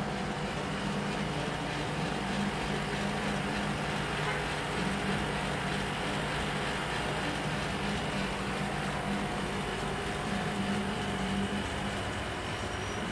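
A steady low mechanical hum over a constant rush of noise, with no break or sudden event.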